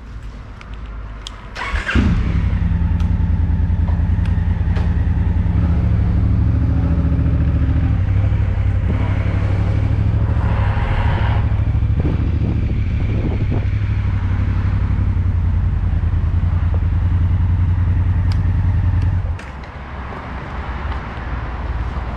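Motorcycle engine starting about two seconds in, then running loud and steady as the bike moves off slowly. Near the end the sound drops abruptly to a quieter low rumble.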